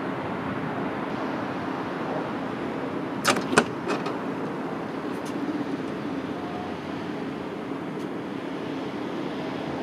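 Berlin S-Bahn class 480 electric train standing at the platform with a steady hum from its equipment. A door sliding open gives a quick pair of sharp clacks about three and a half seconds in.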